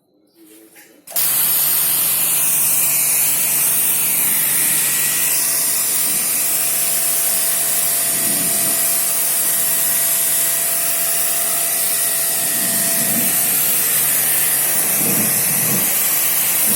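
High-pressure AC-cleaning pump switched on about a second in, running steadily with a low hum under the loud hiss of its water jet, blasting dust out of an air conditioner.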